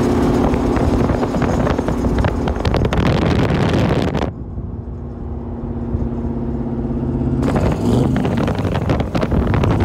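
Steady engine drone from the twin-turbo Duramax diesel NASCAR-style truck cruising alongside at road speed, heard through an open car window with wind rushing over the microphone. The wind noise drops away for about three seconds in the middle, leaving the engine hum.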